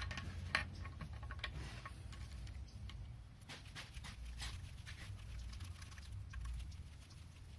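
Scattered light clicks and taps of small metal engine parts and hand tools being handled and set down, over a steady low rumble.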